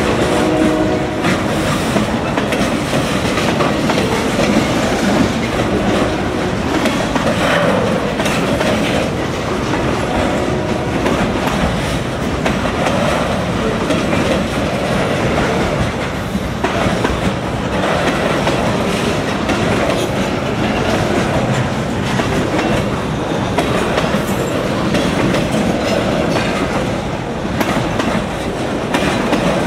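Freight cars rolling past close by, boxcars and then loaded lumber centerbeam flatcars: a steady rumble of steel wheels with a continuous clickety-clack over the rail joints, and short faint wheel squeals now and then.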